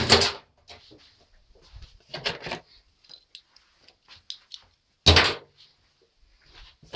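Three loud knocks or bangs, about two and a half seconds apart, with lighter clicks and rattles between them.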